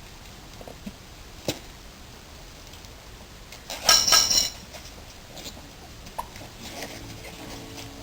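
Metal hand tools handled during motorcycle tyre fitting: a single sharp click, then about four seconds in a loud, brief metallic clatter that rings, followed by a few light clicks.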